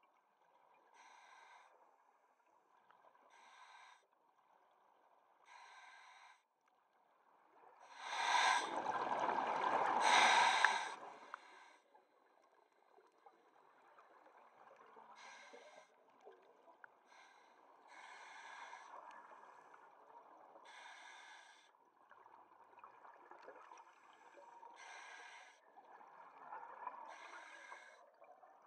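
Scuba diver breathing through a regulator underwater: short hissing draws every few seconds, and a long, loud rush of exhaled bubbles about eight seconds in.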